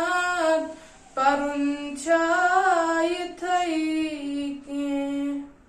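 A boy singing a naat unaccompanied, holding long wavering notes in a few drawn-out phrases, with a short breath about a second in; the last note fades out near the end.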